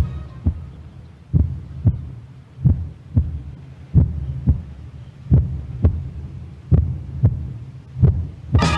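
Soundtrack heartbeat effect: slow, paired low thuds (lub-dub) repeating about every second and a third, seven beats in all, over a low hum.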